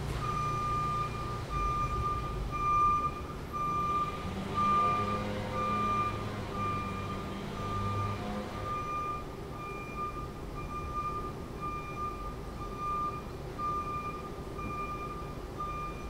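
Vehicle backup alarm beeping about once a second, one steady tone per beep. An engine runs louder underneath for a few seconds in the middle.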